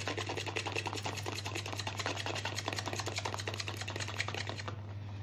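Fork beating egg yolks in a plastic bowl: rapid, even clicks of the fork against the bowl, stopping near the end.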